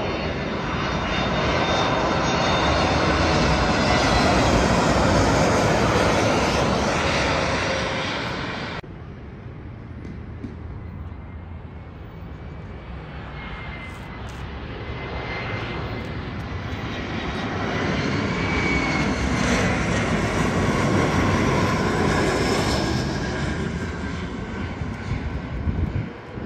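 Airliner engines roaring as a plane passes close, swelling to a peak and cutting off suddenly about nine seconds in. A second airliner's roar then builds, peaks and fades away near the end.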